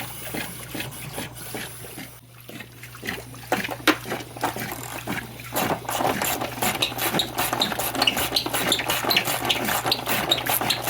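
Water draining and splashing out of a pool cartridge filter housing through its open bottom drain plug, gurgling irregularly. It gets busier about halfway through, while the housing empties.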